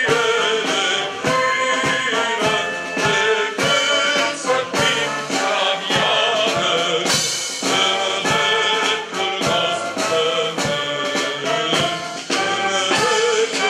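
Brass band playing music, loud and continuous, with frequent distinct note attacks.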